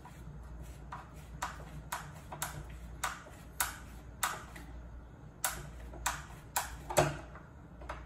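Hand screwdriver turning a screw into a door lock's latch plate: about a dozen sharp metallic clicks roughly twice a second, with a short pause midway and the loudest click near the end.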